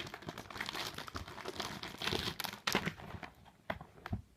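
Plastic packaging crinkling and rustling as a photocard set is handled and opened, with small crackles and a few sharper crinkles.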